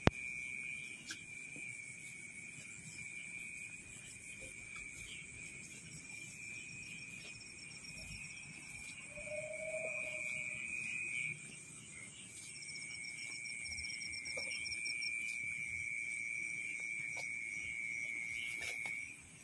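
Night insects calling: a steady high-pitched trill throughout, joined twice by a faster pulsing higher trill, with a short lower call about ten seconds in.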